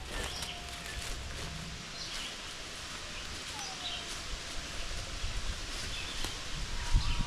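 Woodland background with a few faint bird calls, thin whistles (one falling in pitch about halfway through) and short high chirps, over a low steady rumble. Footsteps on the forest floor start again near the end.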